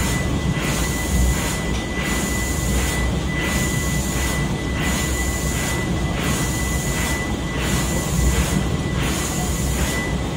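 Paddle steamer's steam engine running slowly, with a low rumble, a steady high whine, and a rhythmic pulse repeating about every one and a half seconds as the cranks turn.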